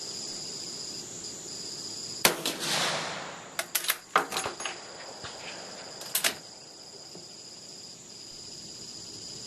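A single shot from an Austrian Steyr M1888/95 rifle firing a low-pressure cast-bullet 8x50R load, a sharp crack with about a second of echo. It is followed by a quick run of metallic clicks and then two more clicks as the straight-pull bolt is worked to eject and rechamber. Crickets chirp steadily behind.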